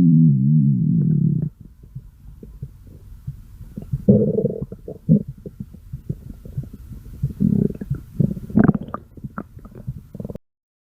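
A person's stomach growling: a loud, pitched, wavering growl that ends about a second and a half in, then a run of quieter gurgles and short pops with louder bursts around four, seven and a half and eight and a half seconds. It cuts off suddenly near the end.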